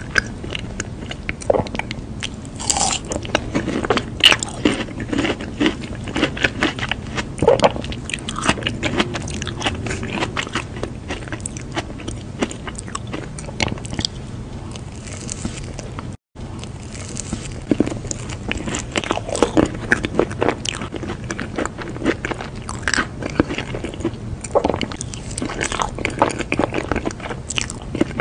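Close-miked eating sounds: repeated crisp bites and wet chewing as round fruit balls and a glazed sponge cake are eaten. There is a very brief break in the sound about halfway through.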